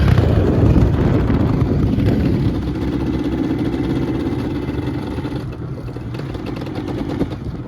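Engine running at a steady pitch, slowly getting quieter.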